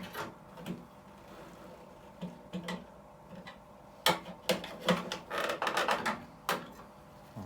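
Clicks, knocks and scraping of tools and sheet-metal parts being handled while a microwave's metal frame is taken apart. There is a busier, louder run of clatter and scraping about halfway through.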